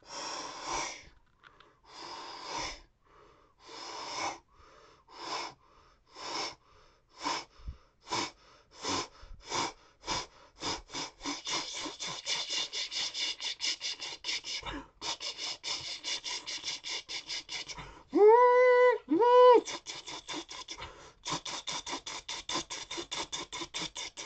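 A person imitating a steam locomotive with their voice and breath. Slow breathy chuffs speed up into a rapid, steady chugging. About eighteen seconds in, two loud whistle hoots cut through, then the fast chugging carries on.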